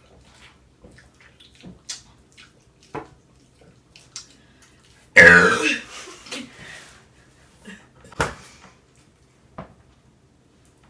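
Quiet eating sounds, small mouth smacks and clicks, over thick mashed potatoes. About five seconds in comes one loud burp lasting under a second, and a sharp knock follows a few seconds later.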